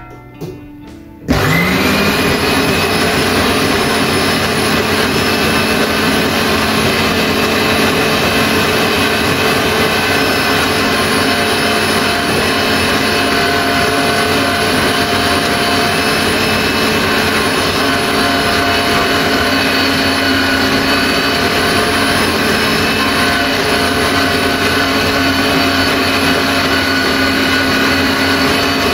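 Stilevs Chefturco electric meat grinder with its tomato-juicer attachment switched on about a second in, spinning up with a brief rising whine and then running steadily while it presses tomato pieces into purée.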